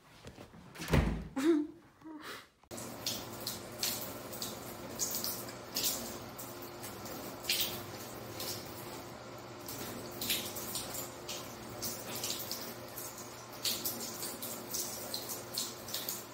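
A thin stream of water runs from a bathtub faucet while a cat laps at it, with irregular wet lapping clicks. The sound opens with a couple of thumps in the first two seconds or so.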